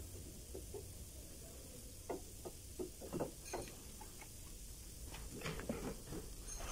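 Light, irregular metal clicks and taps of a hand tool working at a brake caliper, coming in scattered clusters.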